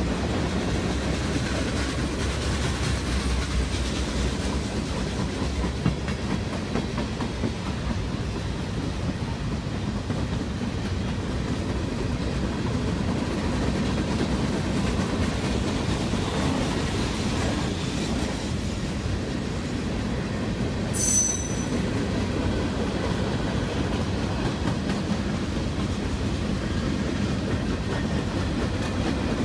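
Freight cars of a mixed freight train rolling past at speed: a steady low rumble with wheels clacking over the rail joints. A brief high-pitched wheel squeal cuts in about two-thirds of the way through.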